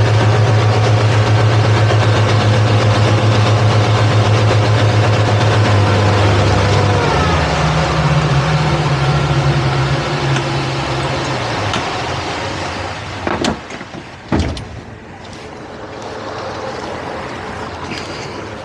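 Twin outboard motors running steadily under way, with water and wind hiss. About seven seconds in the engine note changes and fades out by about twelve seconds as the boat comes off plane. Then two sharp knocks, a second apart.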